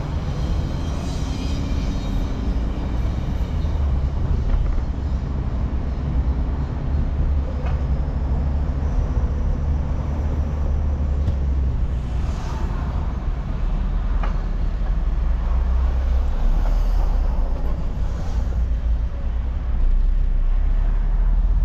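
Inside a moving car's cabin: a steady low rumble of road and engine noise while driving, with two faint ticks.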